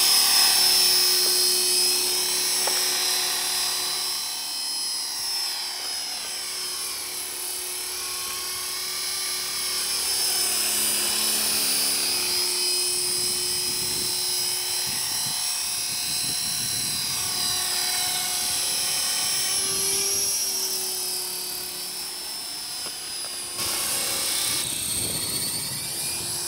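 E-sky Belt CP electric RC helicopter flying: a high-pitched whine from its motor and gears over the rotor hum, gliding up and down in pitch as it moves around. Loudest in the first few seconds, while it is close after lifting off.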